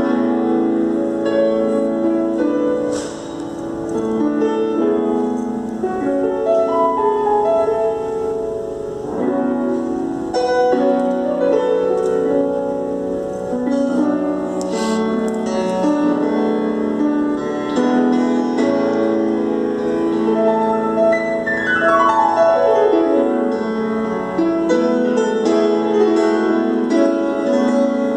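Grand piano played solo: a slow, lyrical song of held chords and melody, with a quick downward run of notes late on.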